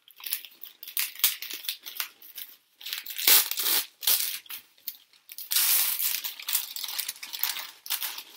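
Packing paper and wrapping crinkling and rustling in irregular bursts as a package is unwrapped by hand, loudest about a third of the way in and again just past the middle.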